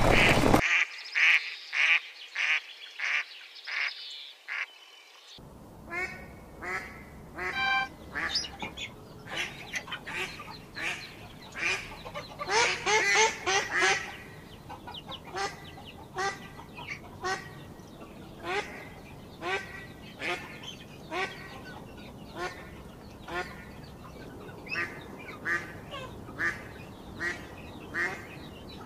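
Ducklings peeping in an even series of short high calls, about two a second, for the first few seconds; then a flock of ducks quacking in short calls repeated about once a second, busiest and loudest near the middle.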